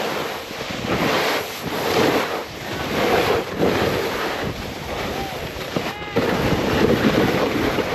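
Snowboard sliding and scraping through slushy spring snow while riding, with wind rushing over the microphone; the noise rises and falls in surges.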